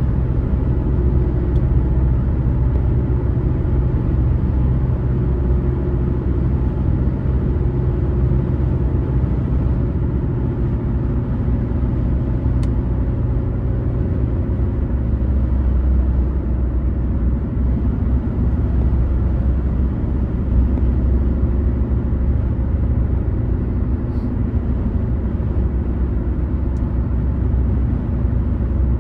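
Car driving at steady speed on a highway: a continuous low rumble of engine and tyre noise that holds level, with a few faint ticks.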